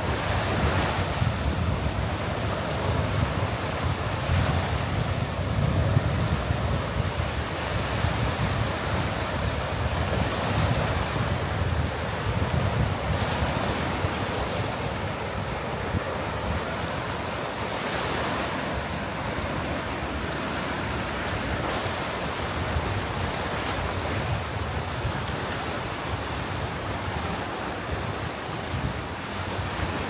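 Small sea waves breaking and washing up a gravel and rock shoreline, swelling every few seconds, with wind buffeting the microphone as a low rumble.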